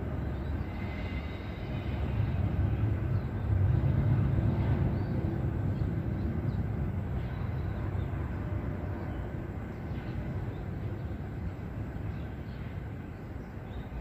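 Common myna calling in short, faint high notes, a string of them about a second in and scattered single ones later, over a steady low rumble like traffic that is the loudest sound throughout.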